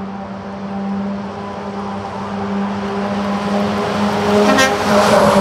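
Concrete mixer truck's diesel engine running at a steady note as it approaches, growing louder, then passing close near the end with a rush of tyre and road noise.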